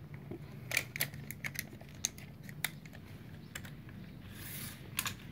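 Scattered light clicks and taps, about eight of them spread irregularly, over a faint steady low hum, with a brief hiss near the end.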